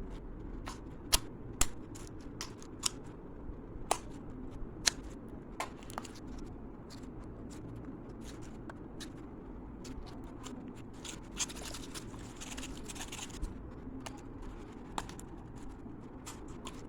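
Crystal mud slime being poked and stretched by hand, making scattered sharp clicks and pops at irregular intervals, with a brief soft crackle about three-quarters of the way through.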